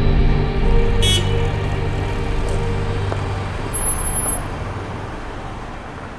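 City street traffic noise: a steady low rumble of cars that slowly fades, with a short high-pitched tone about a second in.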